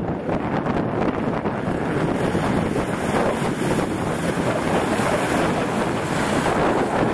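Strong wind buffeting the microphone, with an off-road 4x4's engine running beneath it as the vehicle works down a muddy gully.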